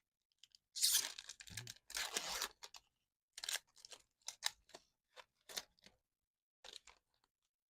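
A foil Magic: The Gathering play booster wrapper being torn open and crinkled. There are two longer tearing rips in the first two and a half seconds, then short crinkles and rustles.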